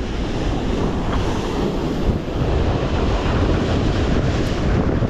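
Ocean surf washing over and breaking against jetty rocks, with strong wind buffeting the microphone into a steady low rumble.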